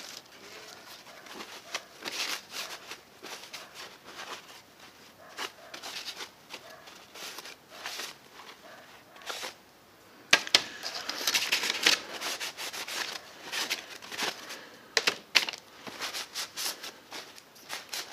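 Hands handling small plastic welding-helmet lens frames and a half-mask respirator, with irregular light clicks and taps and the rustle and rub of a paper towel wiping them. A sharp click comes about ten seconds in, followed by a spell of busier rustling.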